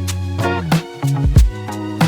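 Background music with a steady beat: a bass line, held chords and regular drum hits, in an Afrobeat or African dance-music style.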